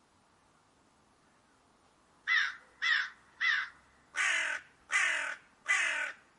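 Crow cawing: after about two seconds of faint background, three short caws in quick succession, then three longer, harsher caws.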